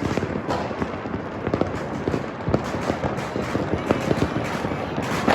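Many fireworks and firecrackers going off all around at once: a dense, continuous crackle and popping with sharper, louder bangs every fraction of a second.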